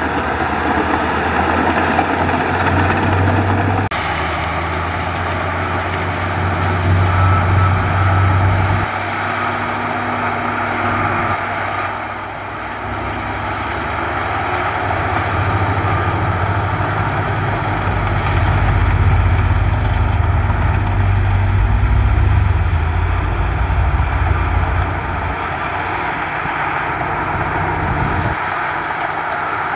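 Heavy diesel engines of earthmoving machines running under load: first a crawler bulldozer pushing dirt, then a Hyundai dump truck tipping its raised bed with a bulldozer nearby. The deep engine hum swells and eases, with an abrupt change about four seconds in.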